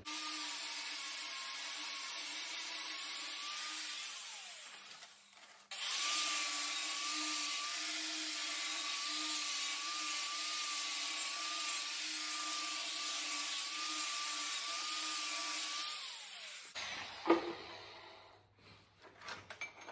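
Angle grinder with a cutting disc cutting through a tractor exhaust pipe in two runs: about four seconds, then a short pause, then about ten seconds more. The motor's whine wavers under load and winds down at the end of each run. A single sharp knock comes about a second after the second run stops.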